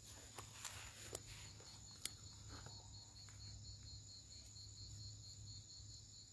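Crickets chirping faintly, a steady high trill with a pulsing chirp beneath it, and a few soft clicks.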